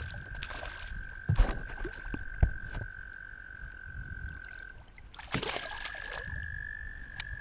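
A hooked bass splashing at the surface on its way to a kayak, with two sharp knocks about a second and a half and two and a half seconds in, and a splash of water about five seconds in as the fish is grabbed at the hull. Under it a frog's long, steady trill carries on, breaking off for about a second just before that splash.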